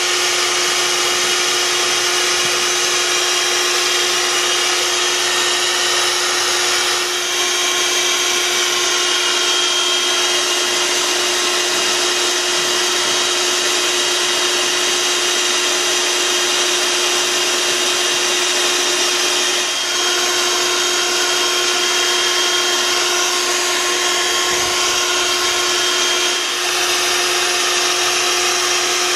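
Bee vacuum running steadily as it sucks up a honey bee swarm through a PVC pipe nozzle: a constant rush of air with a fixed pitched motor hum.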